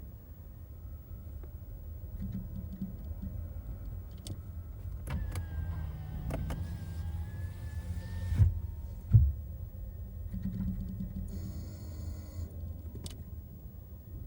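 Toyota Camry brakes giving a weird whining moan at several pitches for about three seconds, over the low rumble of the car. Two sharp thumps follow just after it, and a short buzzy tone comes later.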